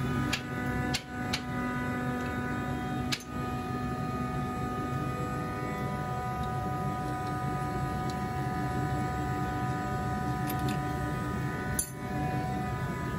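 Steady machinery hum at one unchanging pitch, with a few short, sharp clicks scattered through it.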